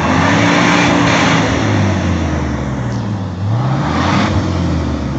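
Jeep Wrangler TJ engine revving up and down under load while off-roading, its pitch rising and falling several times. A loud rushing noise comes over it for the first second and a half and again about four seconds in.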